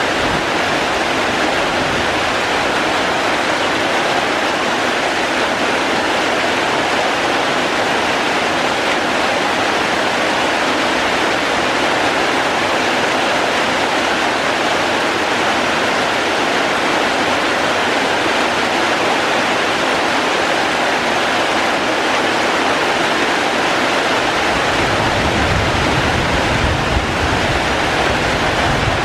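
Steady rain falling, an even rushing hiss with no breaks. A low rumble joins near the end.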